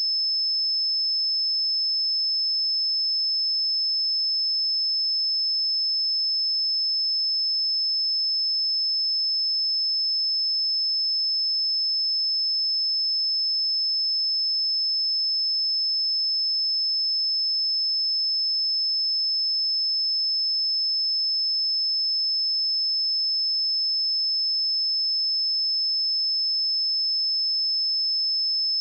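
A pure 5237 Hz sine-wave test tone, one steady high-pitched note held without change.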